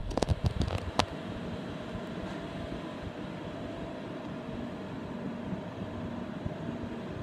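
Steady mechanical hum of a Hitachi Seiki VS50 vertical machining center standing under power, with a few light clicks in the first second.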